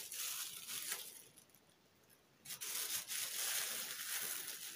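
Clear plastic film crinkling and tearing as hands pull it off whole fish on a plastic cutting board. It stops for about a second partway through, then goes on.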